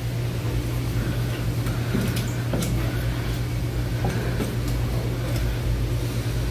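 A steady low mechanical hum with scattered light clicks and knocks over it.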